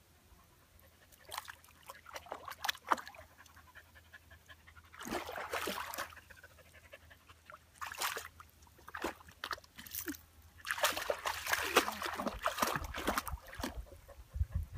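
A dog wading through shallow pond water, splashing and sloshing in irregular bursts, the longest lasting a few seconds near the end.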